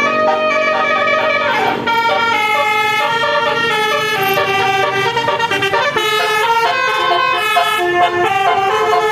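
Basuri V3 telolet horn on a bus playing a tune: several horn tones sounding together as chords, one long chord held at the start, then quicker changes of note every half second or so.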